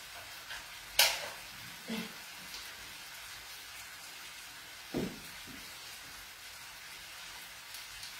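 Faint steady sizzling of a pan still frying in the background, broken by one sharp click about a second in and two softer knocks, one near the middle.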